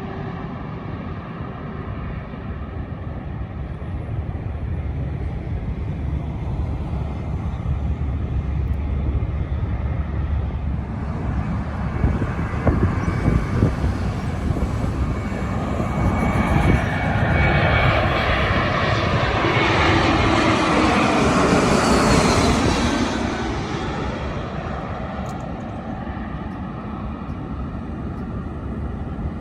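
Jet airliner on landing approach passing close by: the engine noise builds, peaks about three-quarters of the way through with a whine that falls in pitch as it passes, then fades, over a steady low rumble.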